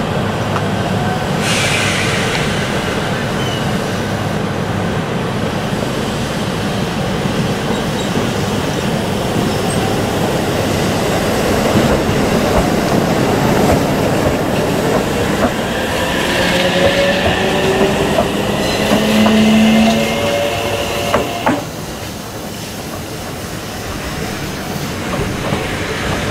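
JR Central 313-series electric train pulling out of the station, a steady running rumble of motors and wheels. A short hiss comes about a second and a half in. Later, wheel squeal with several pitched tones rises and cuts off suddenly at about 21 seconds, leaving a lower rumble.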